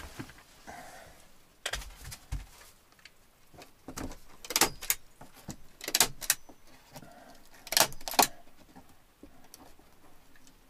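Hand staple gun firing staples through birch bark into the ceiling: a series of sharp clacks, mostly in pairs, every second or two.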